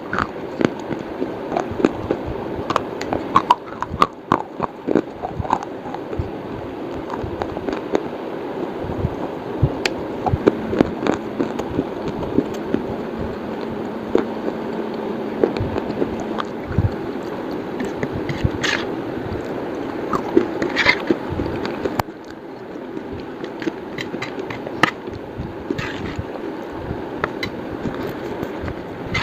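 Slate pencil being bitten and chewed, giving irregular sharp crunches and cracks over a steady background noise.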